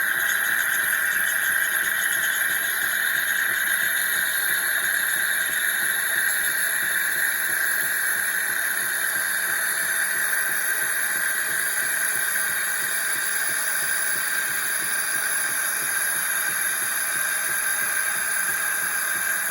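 Bean-to-cup coffee machine making a cappuccino: a steady, unbroken hiss as it dispenses the drink.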